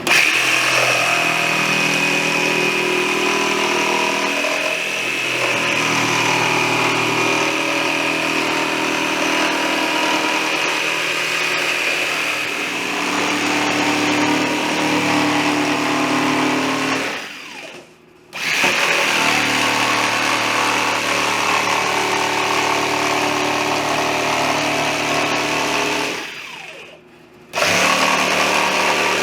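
Electric power tool motor running steadily under load, likely cutting plywood. It switches off and winds down twice, about 17 and 26 seconds in, and starts up again a second or so later each time.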